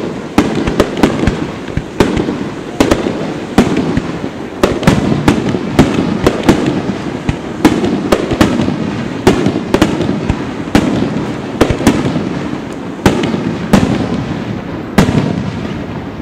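A display of aerial firework shells bursting in rapid succession: a dense run of sharp bangs, several a second at times, over a steady rumble. It dies away at the end.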